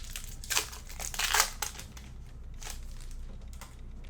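Trading card pack wrappers crinkling as packs are handled, in a few short bursts, loudest about a second in.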